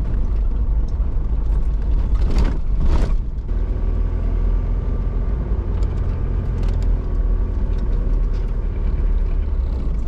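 Pajero motorhome driving: a steady low rumble of engine and road, with a brief louder noise about two and a half to three and a half seconds in.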